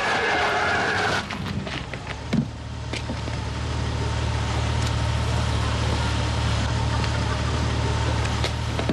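Police siren cutting off about a second in, a sharp knock a little later, then a car engine idling steadily.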